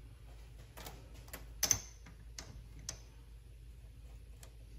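A handful of light, scattered metallic clicks and taps, one sharper than the rest about two seconds in, over a faint low hum: hand adjustments being made on a mini lathe's tool post and carriage while the chuck stands still.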